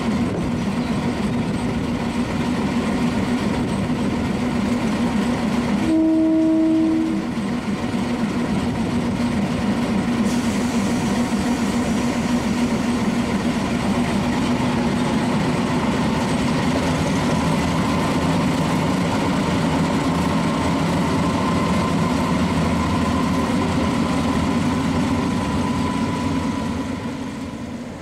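Diesel shunting locomotive's engine running steadily, with one horn blast of just over a second about six seconds in. From about halfway the engine note changes and a faint whine slowly rises as the locomotive pulls away with its coach.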